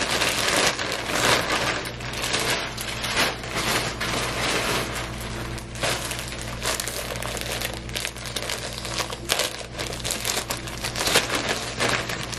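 Plastic packaging being handled: a grey poly mailer ripped open and the clear plastic bags of clothing inside pulled out. It makes a continuous crinkling with many sharp crackles.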